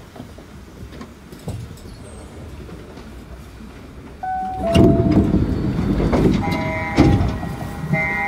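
Osaka Monorail 1000-series train standing at the terminus platform as its doors open: quiet at first, then about four seconds in a short beeping tone and a sudden rise in noise as the doors open. Two sharp knocks follow, then a chime of several tones.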